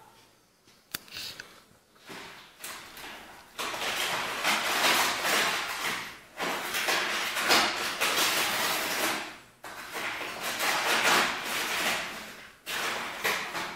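Brown paper shopping bag crinkling and rustling loudly as a cat burrows its head into it and wrestles with it. The noise starts soft and comes in long stretches from about three seconds in, with short pauses between them.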